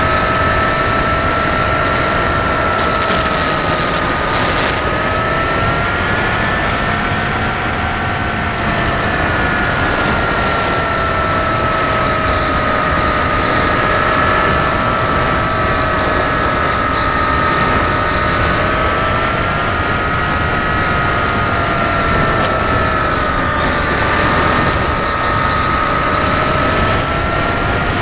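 Electric motor and propeller of an FPV model aircraft, heard from its onboard camera: a steady whine whose pitch wavers slowly up and down, over rushing airflow noise.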